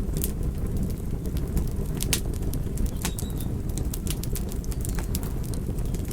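Wood fire burning in a fireplace, crackling and popping: irregular sharp snaps, several a second, over a steady low rush of flame.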